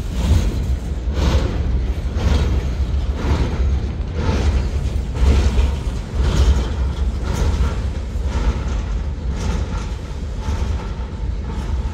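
Freight train's boxcars rolling past at close range: a steady low rumble of steel wheels on rail, with sharp wheel clacks about once a second.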